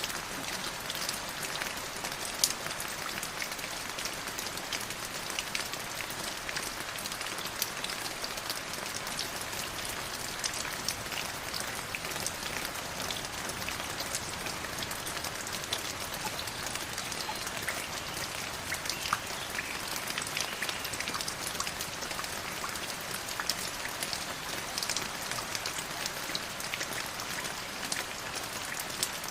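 River water flowing: a steady rush of water with many small splashes and drips all through.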